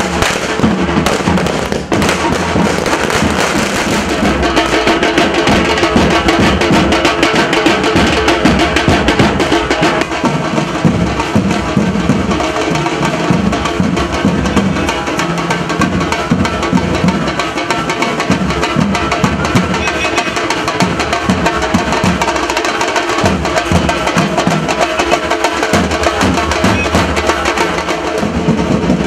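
Drums beating with firecrackers crackling, a dense, continuous din of rapid sharp cracks over the drumming.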